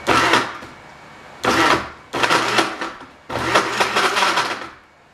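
Countertop blender blending gummy candy in water, run in four short pulses, with the last pulse the longest at about a second and a half.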